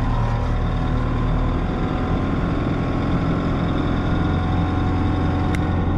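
Tractor diesel engine running steadily, heard from inside the cab, with one short click near the end.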